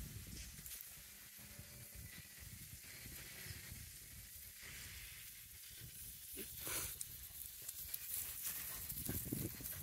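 Faint rustling and hissing of two dogs nosing through long grass, with a low rumble underneath and a couple of louder rustles near the end.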